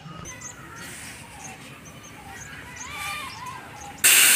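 Faint bird chirps over a quiet background, then a loud hiss starts suddenly near the end.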